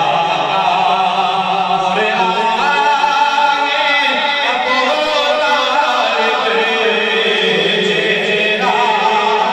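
Devotional chanting: a voice singing long, drawn-out notes that bend and glide in pitch.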